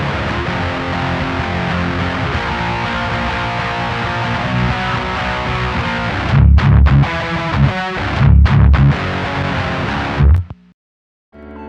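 Distorted eight-string electric guitar with EMG active pickups played through a Diezel VH4 tube amp on its high-gain channel, with a Sovtek 12AX7WA preamp tube and Electro-Harmonix 6CA7 power tubes: a dense riff, then heavy low chugs broken by short stops, ending abruptly. The tone is hard and bright on top with solid lows. A keyboard begins near the end.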